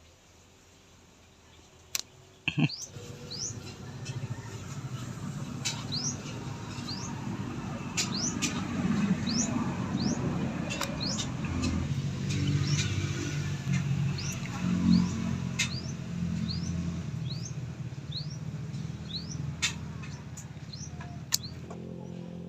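A bird chirping over and over in short rising notes, with a few sharp clicks scattered through and a low rumble underneath.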